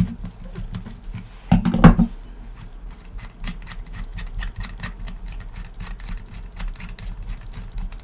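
Gloved hands handling a Mevo Start camera and working its threaded metal tripod-mount adapter loose with pliers, then by hand: a run of small clicks, scrapes and rubbing, with a louder clatter of knocks about one and a half seconds in.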